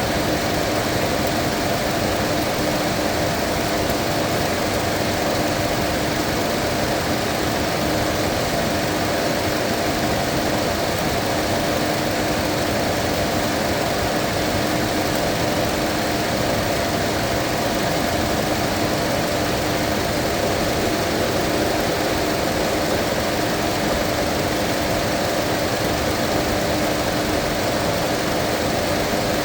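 Mazda 2.5 engine idling steadily at full operating temperature while air is bled from its cooling system, with a constant hum throughout.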